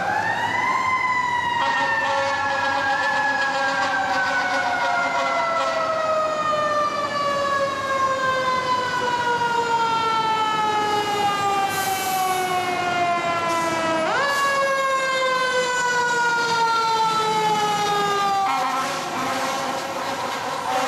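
Fire truck's Federal Signal mechanical siren: it winds up to a wail, then coasts slowly down in pitch, is wound up again about two-thirds of the way through and coasts down once more. A steady blaring tone takes over near the end as the truck passes.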